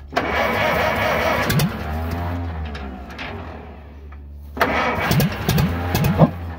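1952 Case DC3 tractor's gasoline engine cranked by its starter on ether, firing raggedly, fading away about two seconds in, then cranking and firing again with a few sharp pops near the end. The engine's ignition timing is off.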